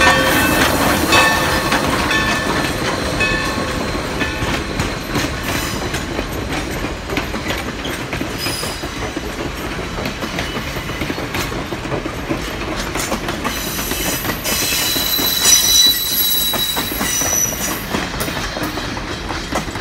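A steam-hauled passenger train rolling past, its coach wheels clattering over the rail joints. In the first few seconds a ringing tone repeats about once a second and dies away. From about 14 to 17 seconds the wheels squeal high-pitched on the rails, the loudest part.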